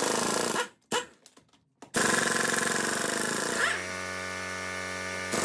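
Pneumatic impact wrench on power setting 3, working lug nuts loose. There is a short burst of hammering, a brief blip about a second in, then a longer run of hammering from about two seconds. Midway this turns into a steady pitched whir: the wrench spinning freely as the nut breaks loose and runs off.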